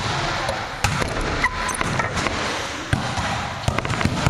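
Volleyballs being struck and bouncing on a gym floor: about five sharp thuds echoing through the hall over a steady background din.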